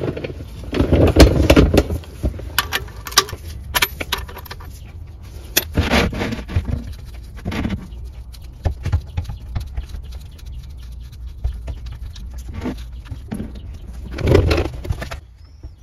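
Gloved hands working the oil drain plug out of a car engine's oil pan: scattered sharp metallic clicks and scrapes, with loud low rumbling swells about a second in and again near the end.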